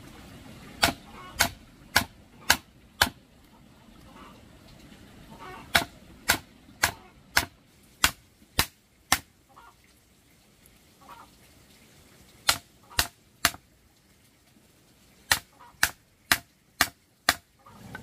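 Chopping with a blade: sharp strikes about two a second, in runs of three to seven with short pauses between.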